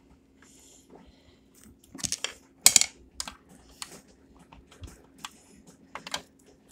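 Onion being grated on a stainless steel box grater: short, irregular scraping strokes, the loudest a pair about two to three seconds in.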